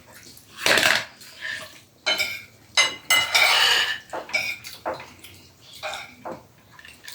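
Spoons clinking and scraping against plates of rice during a meal: irregular clatters, with a longer scrape about three seconds in.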